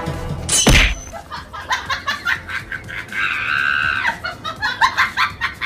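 Comedy sound effects: a sharp falling swoop ending in a thump less than a second in, then quick chattering clicks and a shrill squawking cry about three seconds in.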